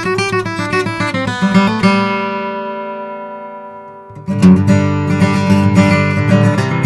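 Custom Martin OM-28 acoustic guitar with Madagascar rosewood back and sides being played: a run of quick picked notes, then a chord left to ring and die away for about two and a half seconds, then strummed chords starting again loudly a little past the middle.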